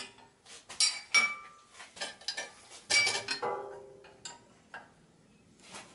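Metal clinking and tapping of a spanner and bolts against the tractor's exhaust muffler and pipe while the muffler is being unbolted. There are a few sharp ringing strikes in the first half, the loudest about three seconds in, then lighter ticks.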